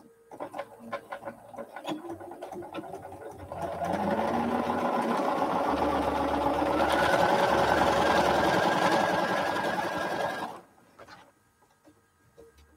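Bernina sewing machine stitching quilt fabric: a few slower separate stitches at first, then a steady fast run for about seven seconds that stops abruptly a couple of seconds before the end.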